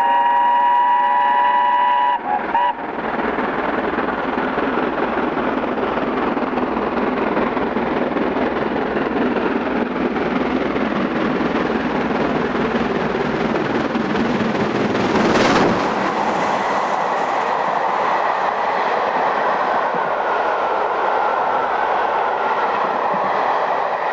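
BR Britannia class steam locomotive No. 70013 'Oliver Cromwell' sounding its whistle for about two and a half seconds, with a short second toot, then running through at speed with a steady rush of exhaust and wheel noise. The loudest moment is the locomotive passing about fifteen seconds in, after which its coaches roll by.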